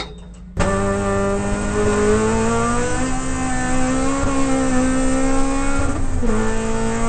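Toyota Corolla AE92 race car's four-cylinder engine heard from inside the cabin, starting abruptly under a second in and pulling hard with the revs slowly climbing. A brief lift and drop in pitch about six seconds in marks an upshift.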